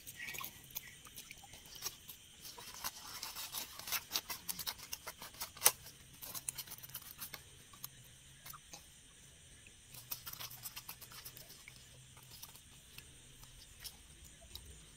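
Crinkling and rustling of a woven plastic sack and a nylon fishing net being handled and pushed together, in scattered short crackles and clicks with one sharp click about halfway.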